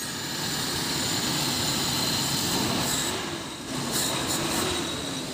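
Toyota 7K four-cylinder petrol engine running steadily, freshly tuned up with new ignition contact points.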